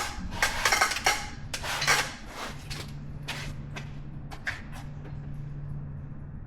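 Small metal brake and hub parts clinking and knocking as they are handled: a quick run of clinks, then a few sparser clicks about halfway through, over a low steady hum.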